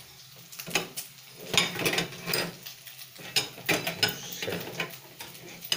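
Plastic containers and lids clattering as they are handled and shifted about, a run of irregular clicks and knocks.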